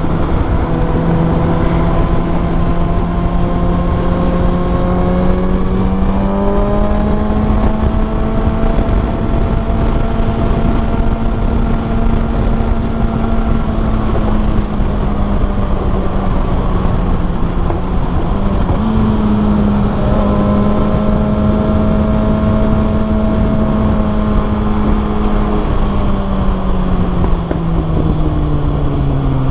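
Kawasaki ZX6R inline-four motorcycle engine running at steady road revs over a constant rushing noise. The engine note climbs about six seconds in, steps up again just before twenty seconds, and falls away near the end as the bike slows.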